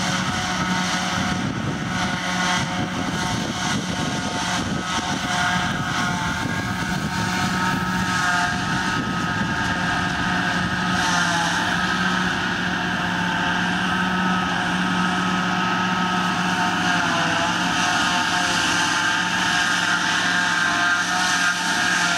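Massey Ferguson tractor and JF-Tuhti V125 forage harvester-wagon running steadily under load as the pickup gathers a grass swath and the chopper-blower throws the chopped grass into the wagon. It makes a steady engine drone with high whining tones from the machinery.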